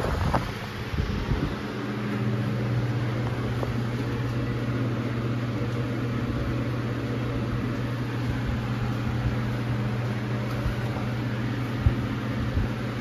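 Steady hum of electric fans and ventilation inside a submarine compartment, an even drone with a flat hiss. A knock and some rumbling come in the first second or so, then the hum runs unchanged.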